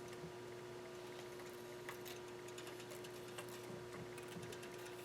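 A few faint light ticks over a low steady hum, from a straightedge and feeler gauge being handled on a cylinder head deck during a flatness check.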